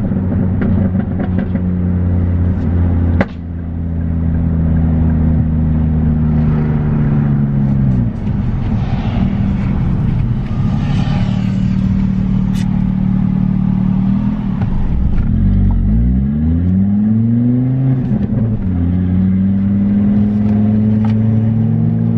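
Mk2 Ford Focus ST's 2.5-litre turbocharged five-cylinder engine heard from inside the cabin while driving, running steadily at first. There is a sharp click about three seconds in. The engine note falls twice, then rises and falls again as the car slows and accelerates, settling to a steady note near the end.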